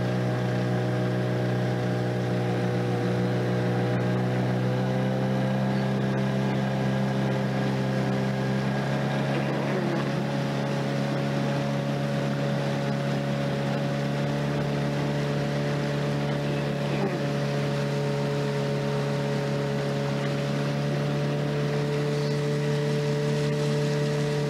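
Small outboard motor running steadily under way, pushing a fishing boat along; its note shifts slightly about nine seconds in.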